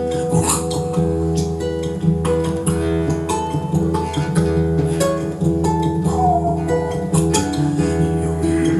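Acoustic guitar music: plucked and strummed notes ringing over a steady low bass.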